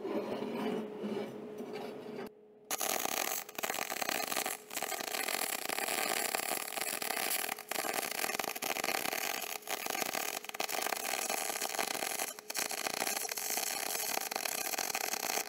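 MIG (gas metal arc) welding with .035 wire: the arc runs with a steady crackling hiss from about two and a half seconds in, broken by a few brief gaps. Before the arc strikes, metal pieces scrape and shift on the metal welding table.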